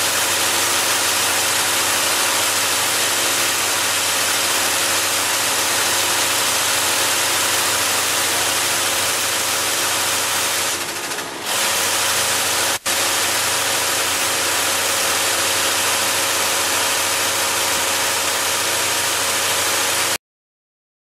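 Ipack YR 700 can body welding machine running steadily: a constant mechanical hum over an even hiss, with a single sharp click a little after halfway. The sound cuts off abruptly near the end.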